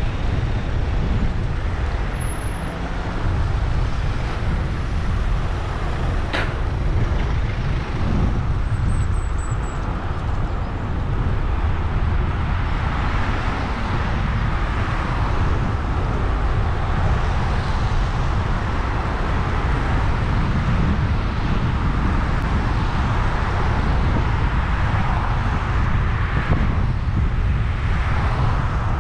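Steady wind rumble on the microphone of a bicycle-mounted camera, mixed with cars passing on wet asphalt. A single sharp click comes about six seconds in.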